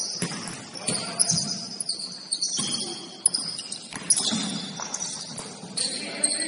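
Basketball game sounds: a ball bouncing on the court and sneakers squeaking on the floor, with players' voices calling out.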